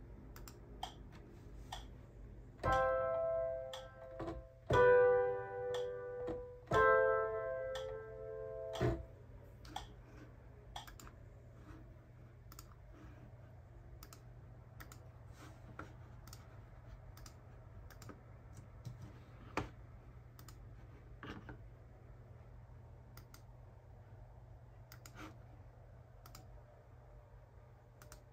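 Scattered clicks of a computer mouse and keys. About three seconds in, three sustained musical chords sound one after another, each lasting a second or two.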